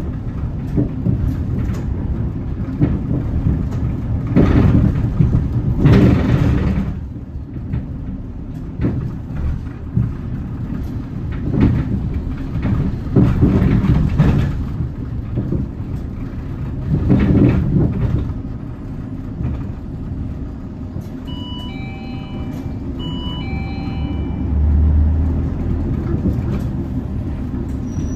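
Hyundai Green City diesel city bus running on the road, a steady low engine and road rumble with louder rattling jolts now and then. A short electronic chime sounds twice a little past the middle.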